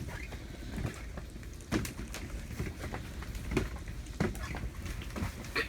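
Scattered light knocks and clicks of cookware being handled as perch go into a hot buttered pan, over a low steady rumble of wind.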